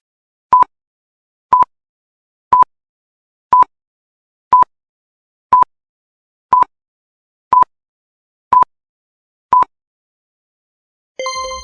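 Workout interval timer beeping ten times, one short high beep each second, counting down between exercises. Electronic dance music starts again near the end.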